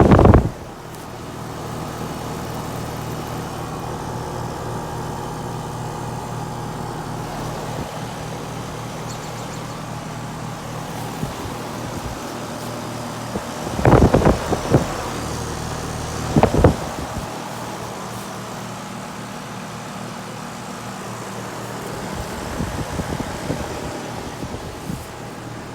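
2005 2.5-ton Rheem Classic central air conditioner's outdoor unit running: a steady compressor hum under the whoosh of the condenser fan. A few brief loud bumps break in about 14 and 16 seconds in.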